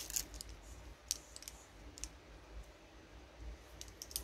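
A handful of faint, scattered clicks and taps from handling makeup brushes with matte blue handles as they are moved and set down.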